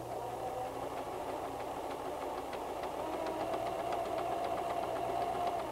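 White 1735 electric sewing machine running at a steady speed while sewing a reinforced zigzag (L) stitch at a wide stitch width: a steady motor whine with the fast ticking of the needle mechanism. It stops at the end.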